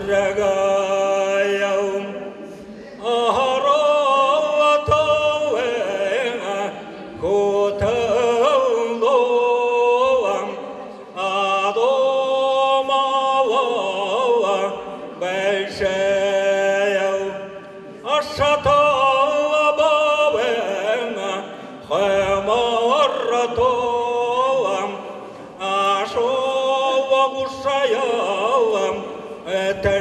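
A man singing a slow Buryat folk song solo into a microphone. He sings long held notes that slide between pitches, in phrases of three or four seconds with short breaths between them.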